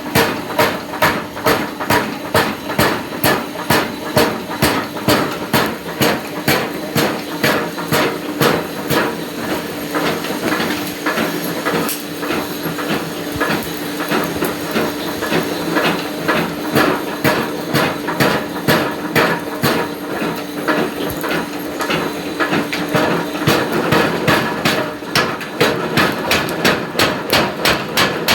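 Forging hammer striking metal in an even rhythm, about two blows a second, the blows coming faster and lighter through the middle, over a steady machine hum.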